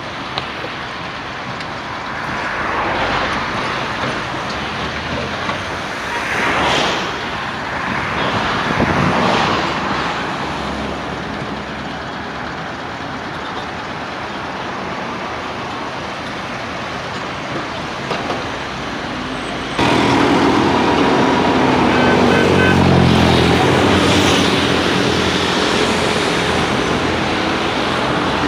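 Road traffic going by in a steady wash of noise, with vehicles swelling past a few times. About two-thirds in, a louder engine comes in suddenly and revs, rising in pitch.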